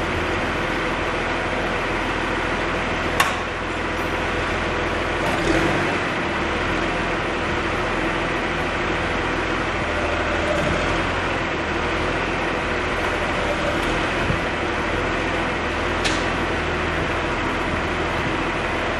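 John Deere 710D backhoe's diesel engine running steadily, with a sharp click about three seconds in and another near the end.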